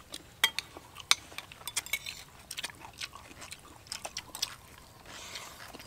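Eating sounds: spoons clicking and scraping against plates and bowls, along with chewing, giving many short, irregular clicks. A brief soft hiss comes near the end.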